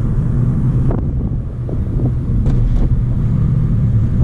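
Inside the cabin of a 2004 Honda Accord on the move: a steady low road and engine rumble, with a few faint clicks.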